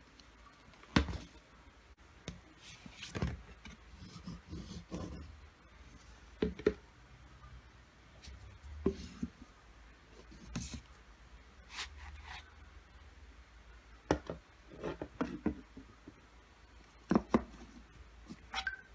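Hands handling a lightstick box and its packaging: irregular taps, knocks and short rustles, with the sharpest knock about a second in.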